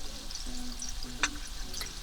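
Rice and shrimp frying in a hot wok, with scattered small crackles and spits and one sharper click just past the middle, over soft background music.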